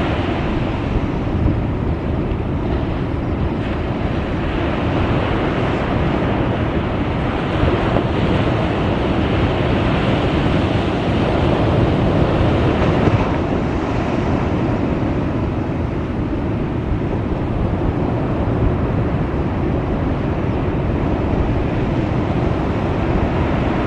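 Ocean surf breaking with wind buffeting the microphone: a steady, even rush of noise with no distinct events.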